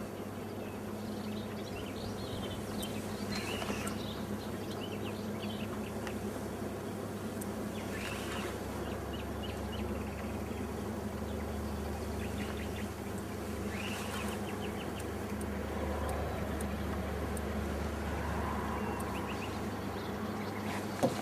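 A steady low hum, with short bird chirps now and then.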